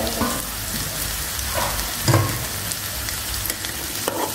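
Shredded boiled chicken frying in onion-tomato masala in a metal kadai, sizzling steadily as a metal spoon stirs it in, with a thump about two seconds in.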